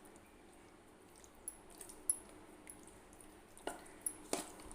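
Hands mixing raw chicken in a wet spice-and-lemon marinade: soft squelching with a few sharp clicks.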